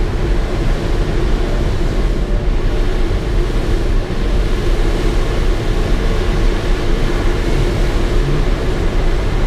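Steady rush of air over the canopy and fuselage of an engineless ASK 13 two-seat glider in flight, heard from inside the cockpit, with a low rumble underneath.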